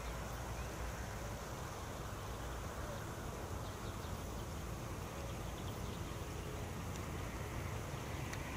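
Steady outdoor ambience: a low rumble and an even hiss, with a few faint short chirps.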